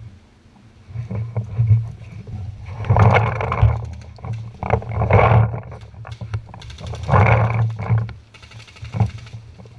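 A person breathing hard, with loud heavy breaths about every two seconds, and a few short clicks and knocks between them.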